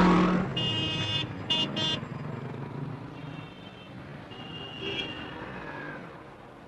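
A road vehicle's engine and traffic noise fading away, broken by a few short, high-pitched horn toots in the first two seconds and again around the middle.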